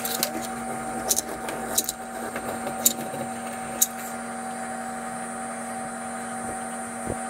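A steady hum, with a few sharp clicks in the first four seconds.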